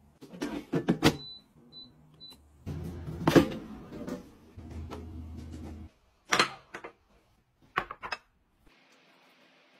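Uringo air fryer being worked: clicks and clunks of its drawer basket, three short high beeps from its control panel, then a few seconds of low steady hum with one loud clunk. Near the end come a couple of sharp knocks, like a ceramic bowl set down on a table.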